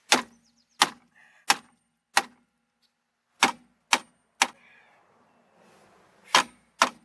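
Nine hard hammer blows on a seized rear brake drum, each with a short metallic ring: four evenly spaced, then three quicker ones, then two near the end. The drum is being beaten loose from the hub.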